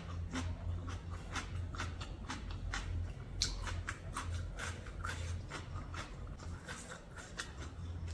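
A person eating spicy papaya salad with seafood: irregular wet chewing and lip-smacking clicks, two or three a second, over a low steady hum.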